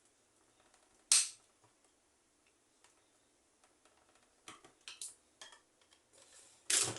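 Metal pliers working at a stuck screw in a small fan's plastic housing: one sharp metallic click about a second in, a few lighter clicks and taps later, and a louder knock near the end.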